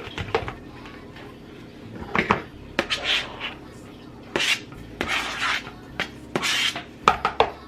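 Irregular kitchen scraping and clinking of a knife and dishes: cubed raw chicken being scraped off a cutting board into a bowl.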